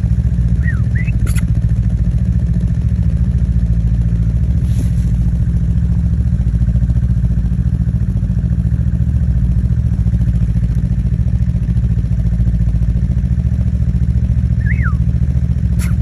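Ski-Doo snowmobile engine running steadily with an even low hum. A person whistles to call a coyote: two short rising whistles about a second in, and one rising-then-falling whistle near the end.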